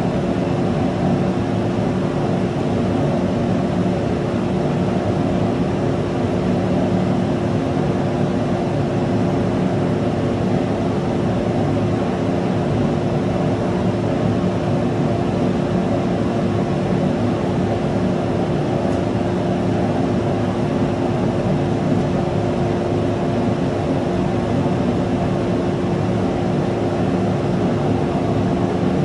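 Avid CNC router with its dust collection running: a loud, even machine noise with one steady hum-like tone, unchanging throughout.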